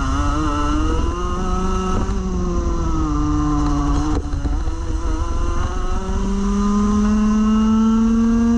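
Rotax Max Evo Senior 125cc single-cylinder two-stroke kart engine under full throttle, its revs climbing out of a corner, sagging briefly a little before halfway, then rising steadily as the kart accelerates down the straight.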